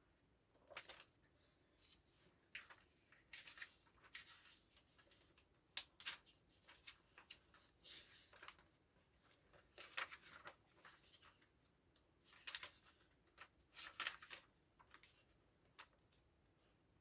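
Faint, irregular rustling and soft ticks of comic books being handled and shuffled, with a sharper tap about six seconds in.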